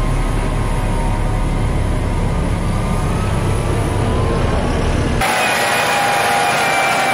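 A John Deere tractor pushing a front plow blade along a snowy street, its engine running with a strong low rumble and a pitch that rises slightly as it comes closer. About five seconds in, the sound cuts sharply to the steady, high whine of a Larue snowblower driven by a John Deere 8360R.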